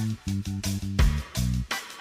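Background music: a rhythmic, upbeat track with plucked guitar-like notes, a bass line and a drum kit.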